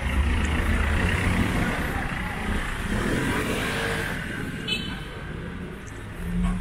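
A motor vehicle passing close by in street traffic. It is loudest in the first couple of seconds, then fades away.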